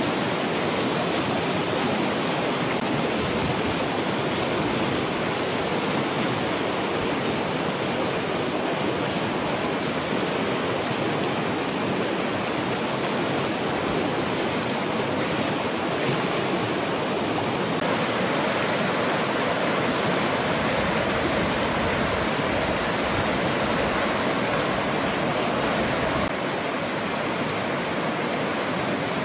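Shallow river rushing over stones and rapids, a steady rush of water. It turns brighter and a little louder about two-thirds of the way through, then drops slightly near the end.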